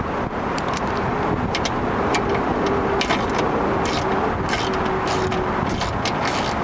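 Ratchet wrench with a socket on an extension clicking in short, irregular runs while loosening a bolt inside a car door, over a steady background rumble.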